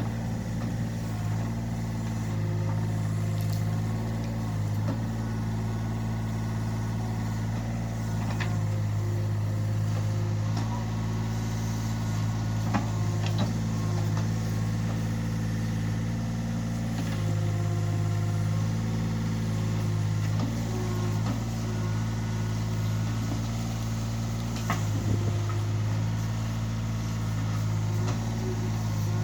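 Yanmar B27 mini excavator's diesel engine running steadily during a digging test, with a higher hum that shifts in pitch every few seconds and a few sharp knocks.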